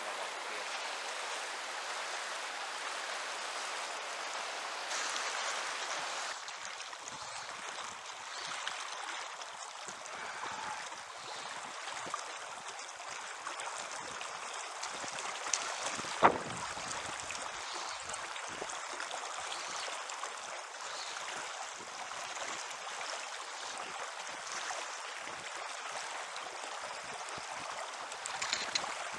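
River water rushing over rapids, a steady hiss that drops a little after about six seconds. There is one sharp knock about halfway through.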